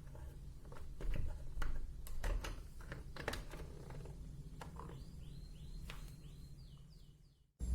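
Scattered light clicks and taps over a low steady hum, followed from about five seconds in by a quick run of about six short, high chirps, like a small bird calling.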